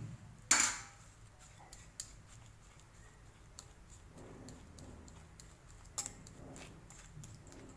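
Fork mashing hot steamed purple yam in a glass bowl: soft scraping with light clicks of metal on glass, and one sharp clink about half a second in.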